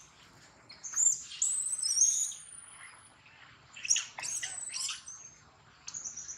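High-pitched squeals and cries of a baby long-tailed macaque, in two bouts: a long rising squeal about a second in, then a cluster of shorter squeals around four seconds in.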